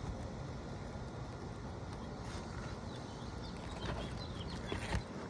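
Faint scraping and clicking of a pry bar working under brittle asphalt shingles, with a few short clicks about two seconds in and again near the end, over a steady background noise.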